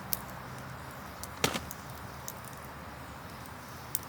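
A few sharp clicks and knocks, the loudest about a second and a half in, over a steady outdoor hiss.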